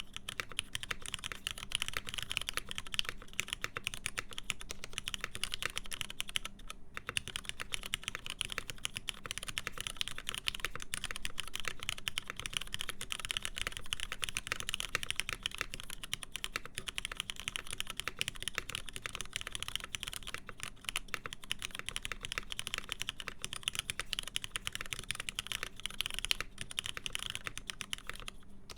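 Continuous fast typing on a mechanical keyboard with lubed linear Cherry MX Black switches in a full aluminium plate, with PBT keycaps: a dense stream of key clacks, pausing briefly twice.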